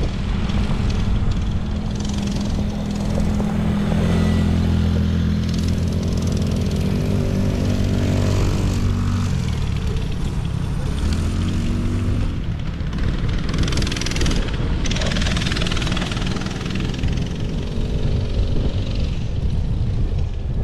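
ATV engines running with a steady drone whose pitch drops about ten seconds in, over wind rumbling on the microphone.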